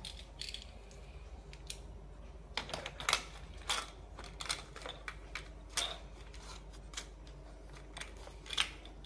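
Small plastic toy cars and a plastic ramp racetrack clicking and clattering as they are handled and set on the track, in light irregular clicks.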